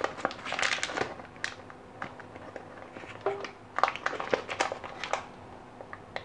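Butter wrapper crinkling and rustling in short bursts while a block of butter is handled and cut, loudest about a second in and again around four to five seconds in.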